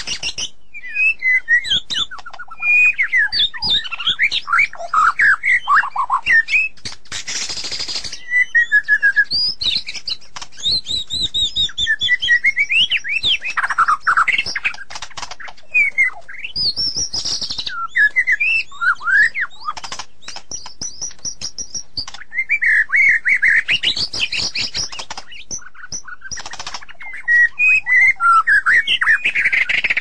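White-rumped shama singing: a run of varied, rich whistled phrases that slide up and down in pitch, separated by short pauses, with sharp clicks mixed in.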